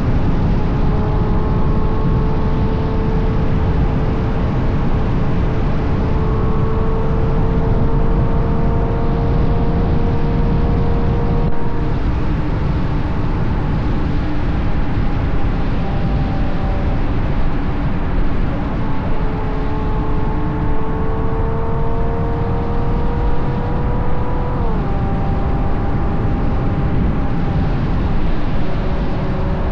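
Ferrari GTC4Lusso's 6.3-litre V12 with a Capristo exhaust running under way. Its tone climbs slowly twice and drops abruptly about 12 seconds in and again near 25 seconds, over heavy road and wind rush.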